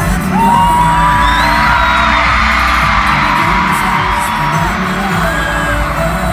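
Live music performance: a high voice holds one long note for about four seconds over the band's steady beat, while the crowd screams and cheers, loudest in the middle.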